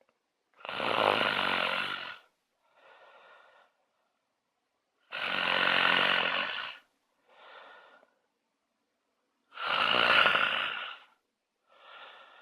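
A person snoring: three loud, rattling snores about four and a half seconds apart, each followed by a quieter breath.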